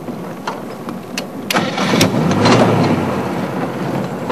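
Vehicle engine running, getting louder about a second and a half in, with a few clicks.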